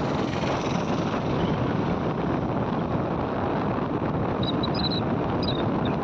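Steady rush of wind over the microphone with road noise from a moving vehicle. A few faint high chirps come through about three-quarters of the way in.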